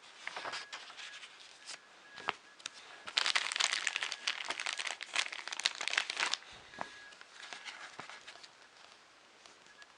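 Magazine pages being handled and turned: paper rustling and crinkling, densest for about three seconds in the middle, with scattered light taps and rustles around it.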